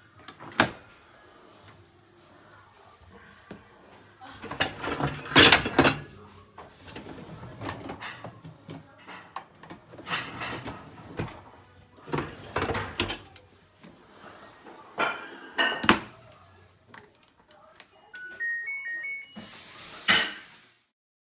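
LG LD-1481W4 dishwasher being handled: a series of knocks and clattering, then near the end a short rising run of electronic beeps from its control panel, followed by a brief loud rush that cuts off suddenly.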